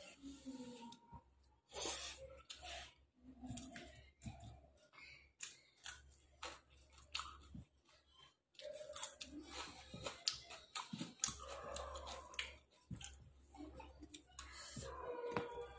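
Close-up eating sounds of mutton biryani being chewed: many soft mouth clicks, wet chewing and lip smacks.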